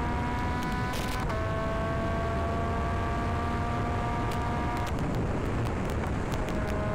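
Motorcycle under way with a steady rush of wind and road noise. The engine note climbs, steps down at a gear change about a second in, climbs again, then drops away about five seconds in.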